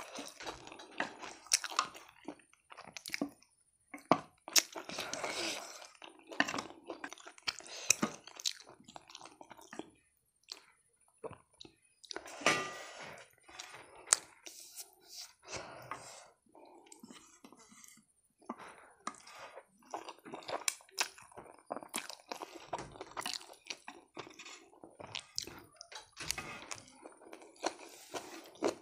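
A person chewing food close to the microphone, with many short, irregular crunches and bites.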